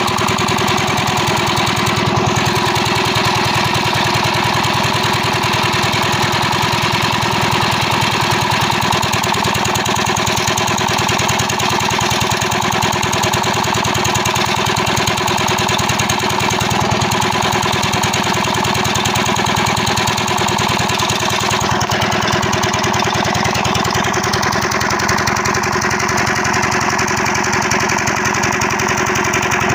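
Kam LD 25 hp single-cylinder diesel engine running steadily with a fast, even knock, driving a water pump through flat belts.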